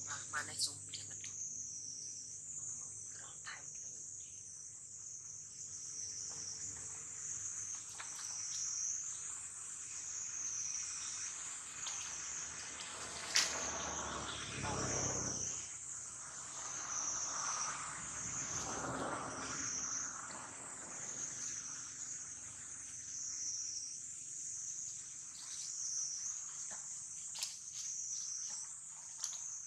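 Steady, high-pitched insect chorus that wavers slightly, with a few sharp clicks, the strongest about halfway through.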